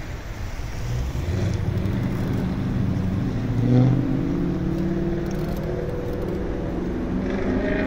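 A motor vehicle engine running nearby with a steady low drone. It rises in pitch and swells to its loudest about halfway through, then settles back to a steady hum.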